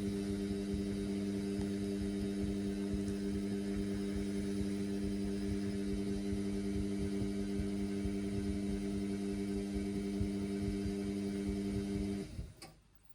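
Indesit washing machine running mid-cycle on a synthetics wash overloaded with suds: a steady hum with a low rumble under it, which cuts off suddenly near the end.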